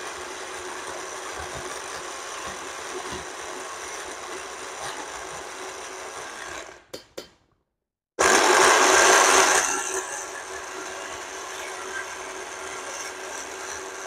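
Black+Decker 4-in-1 sports blender running steadily on a load of apple slices, pomegranate and two ice cubes with no water, failing to grind it: the dry fruit stays stuck above the blades for lack of liquid. About halfway through it stops, gives a few short pulses, goes silent for about a second, then runs louder for a second or so before settling back to steady running.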